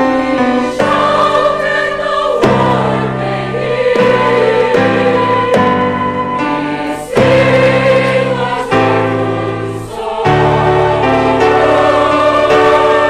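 A large choir singing together in held, sustained notes, the phrases breaking off briefly twice before the singing resumes.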